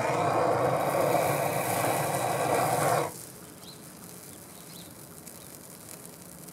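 Handheld gas torch flame hissing steadily while held to a piece of spray foam insulation, then shut off suddenly about three seconds in.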